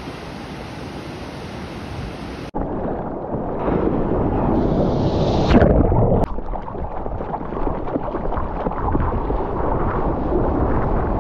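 Surf and rushing water, with wind buffeting the microphone. About two and a half seconds in the sound switches abruptly to a duller, louder rush close up on a surfboard-mounted camera. A loud splash comes about five and a half seconds in, then water spray hisses past as the board rides the wave.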